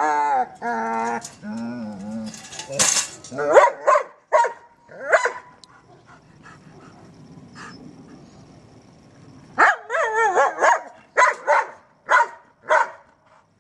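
German Shepherd dog vocalizing excitedly at play: drawn-out wavering calls at first, then short sharp barks. A quieter stretch comes in the middle, and a quick run of about six barks comes near the end.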